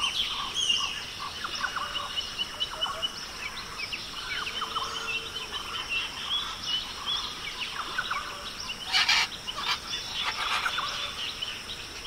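Many birds calling and chirping over a steady high-pitched hum, with a brief louder noisy burst about nine seconds in.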